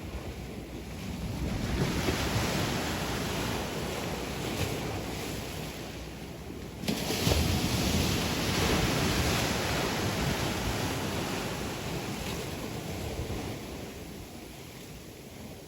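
Sea waves surging onto the shore. The wash swells about two seconds in, and a wave breaks sharply about seven seconds in. Its wash then slowly dies away near the end.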